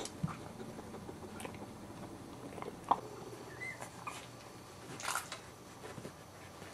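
Boxer puppies making soft scattered smacking and mouthing noises, with a short high squeak partway through.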